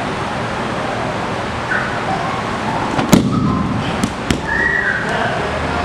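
A judo throw landing: a body hits the mat hard with a heavy thud about three seconds in, followed about a second later by two sharper smacks.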